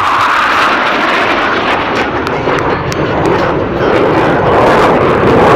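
Jet noise from a pair of U.S. Navy F/A-18 Hornets flying past: a loud, dense rushing sound with sharp crackles through the middle. It grows louder about four seconds in.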